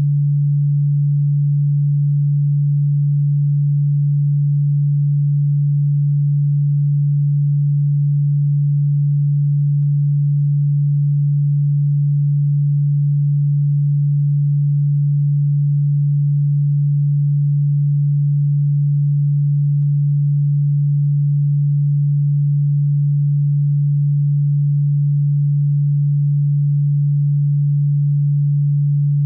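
A single steady, low-pitched pure electronic tone, held unchanged and loud, played as a cockroach and ground-bug repellent sound.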